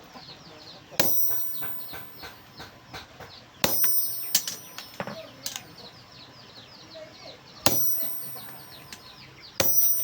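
Hammer blows on steel at an anvil: four heavy strikes a few seconds apart, each with a long high metallic ring, and two lighter taps between them. Birds chirp steadily in the background.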